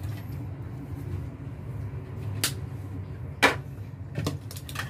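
Small tools and parts being handled and set down on a cloth work mat: a few scattered clicks and knocks, the loudest about three and a half seconds in, over a steady low hum.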